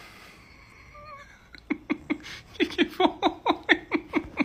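A woman laughing in a quick run of short bursts, about four a second, starting about a second and a half in.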